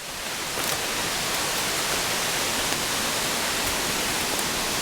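Steady rush of rain-swollen creek water and a small waterfall, an even hiss that settles in just after the start.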